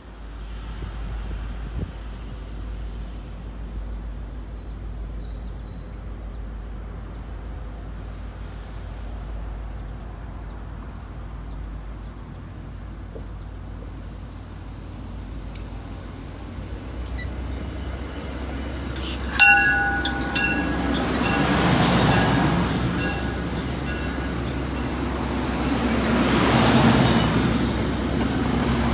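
MBTA commuter rail train, cab car leading, approaching with a low steady rumble, then passing close from about eighteen seconds in. As the coaches go by, the wheels rumble and give several sharp high-pitched squeals.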